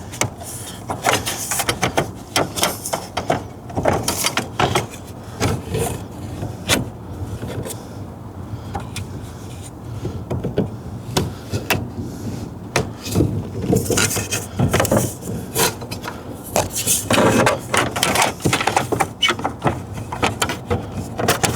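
Irregular clicks, taps and rubbing of small steering-column parts being handled and slid back into place during reassembly.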